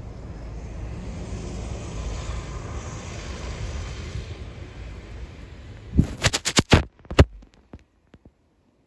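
Storm wind buffeting the microphone, a steady rumble with hiss. About six seconds in comes a quick run of sharp knocks and clicks, then one more, and the sound cuts out.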